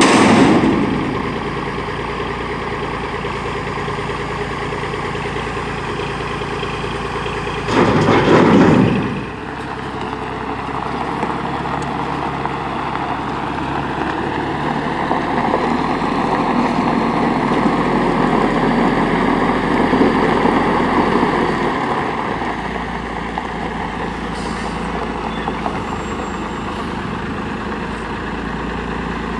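Diesel engine of a 1986 Peterbilt 310 front-load garbage truck running steadily, with its pitch shifting about halfway through as the truck moves off. A brief loud burst of noise at the start and a longer, louder one about eight seconds in.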